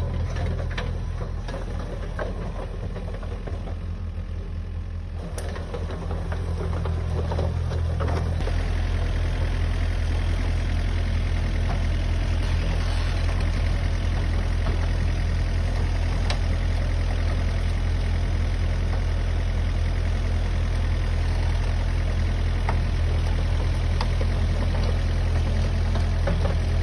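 Kubota KX057-5 mini excavator's diesel engine running steadily at idle. It grows louder about six to eight seconds in and then holds a steady, fuller note.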